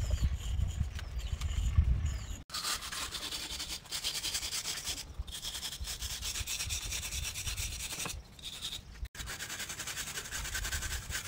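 Quick, repeated rubbing and scratching of a drawing stick and hand on rough concrete as shading is worked into a pavement drawing. The sound cuts off abruptly twice, and a low rumble underlies the first couple of seconds.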